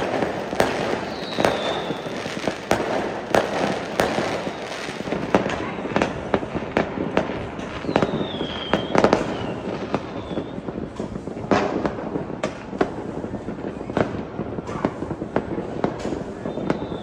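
Many fireworks bursting in quick succession: a dense stream of bangs and crackling, with a few short falling whistles.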